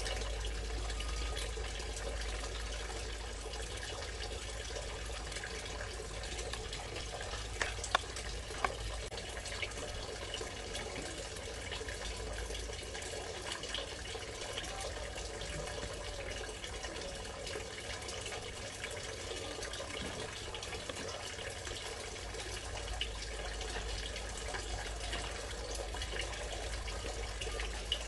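Kitchen knife slicing a peeled luffa gourd into wedges over a plastic colander: soft cuts, with a couple of sharp clicks about eight seconds in, all over a steady hiss and a low hum.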